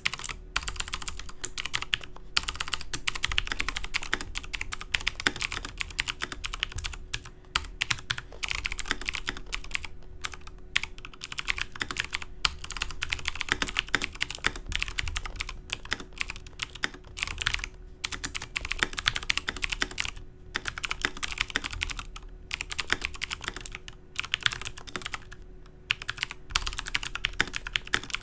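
XPG Summoner mechanical keyboard with clicky Cherry MX Blue switches being typed on fast, a dense stream of sharp key clicks in runs broken by brief pauses.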